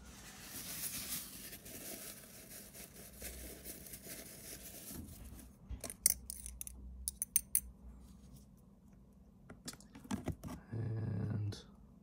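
Tissue paper rustling and rubbing as spilled ink is wiped off a fountain pen cartridge. This is followed by several sharp little clicks and taps of plastic pen parts. A short low hum comes near the end.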